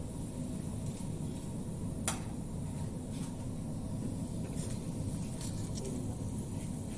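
A steady low kitchen rumble with a few light clicks of stainless-steel tongs against food and dishes, the sharpest about two seconds in.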